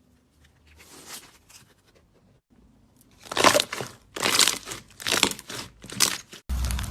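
Slime being squeezed and pressed by hand, giving a run of crunchy, crackling squishes, about five of them loud and each under a second long. Near the end it cuts abruptly to a steadier, denser crackling from another slime clip.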